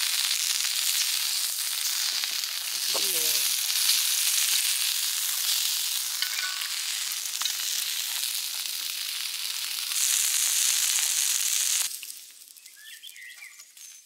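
Sausages and bagels sizzling on a cast-iron griddle over a portable gas stove, a steady frying hiss. It cuts off suddenly about twelve seconds in, leaving a few faint bird chirps.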